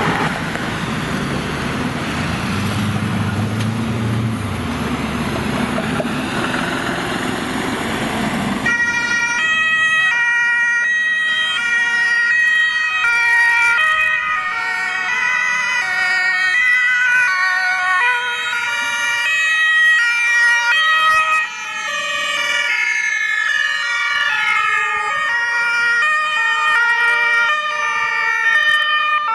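Road traffic noise for the first several seconds, then, about nine seconds in, a column of German ambulances' two-tone sirens: several sirens each switching back and forth between two pitches, sounding together out of step.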